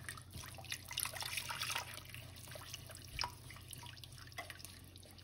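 Milk being added little by little to a hot ghee-and-flour roux in a saucepan and stirred in. Faint, wet, dripping liquid sounds mix with scattered light clicks of the spoon, busiest from about one to two seconds in.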